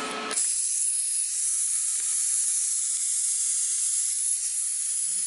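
Steady hiss of compressed air blowing through the plasma cutting torch of an Everlast multi-process welder set to cut mode, starting abruptly about a third of a second in.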